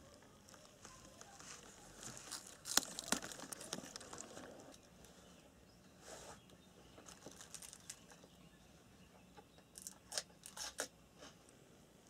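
Faint crinkling and rustling of packaging or a bag being handled during a snack, with a sharp click a few seconds in and a quick run of short crackles near the end.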